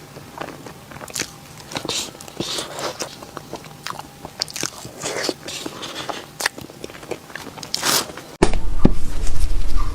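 Close-miked biting and chewing of Korean cake, with irregular crisp crunches and crackles. About eight seconds in the sound cuts suddenly to a much louder recording with a strong low hum underneath the eating noises.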